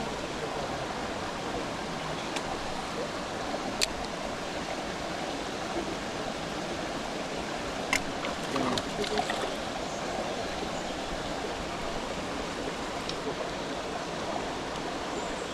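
Mountain stream rushing steadily, with a couple of short sharp clicks about four and eight seconds in.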